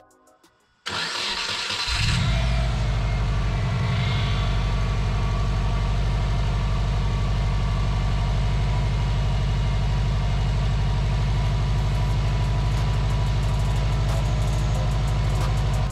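Subaru Forester XT's freshly built turbocharged flat-four engine starting about a second in, then settling into a steady idle.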